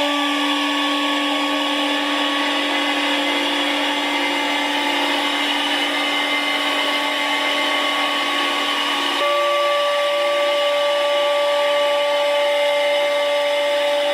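CNC router spindle running a small end mill through a block of hardwood, a steady whine over the noise of the cut. About nine seconds in the pitch of the whine changes abruptly and stays steady again.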